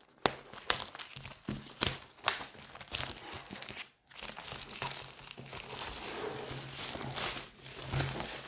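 Plastic shrink wrap crinkling and tearing as it is pulled off a cardboard board-game box, with irregular crackling rustles that stop briefly about halfway through.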